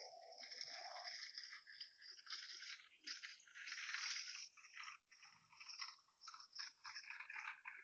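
Faint, irregular rattling and crunching of a trolley's wheels rolling over a hard floor, swelling and fading as it moves.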